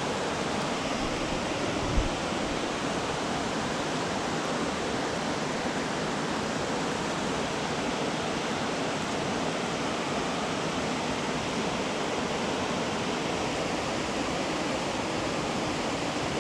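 Creek water rushing steadily, with one brief low thump about two seconds in.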